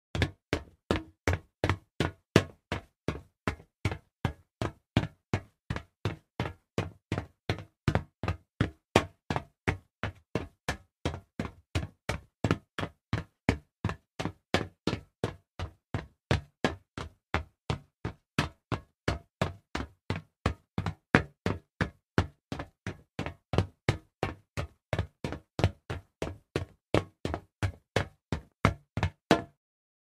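Fast footsteps on hollow metal: a steady run of sharp knocks, about three steps a second, in an even rhythm.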